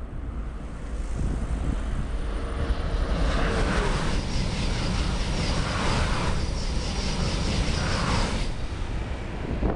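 Double-deck TGV high-speed train passing at speed: a rush of noise builds over the first few seconds, then goes loud with three surges as the cars go by, and drops off sharply about a second before the end. Wind buffets the microphone throughout.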